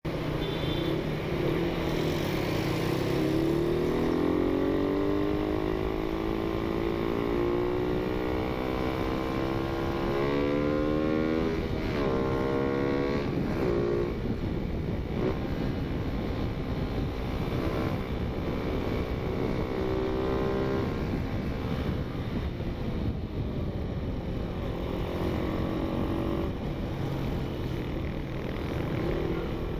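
Suzuki Raider 150 motorcycle engine heard from the rider's seat, accelerating through the gears: its pitch climbs steadily for several seconds, then rises and drops a few times in quick succession as it shifts up, then settles to a steady cruise. Wind rush on the microphone runs underneath.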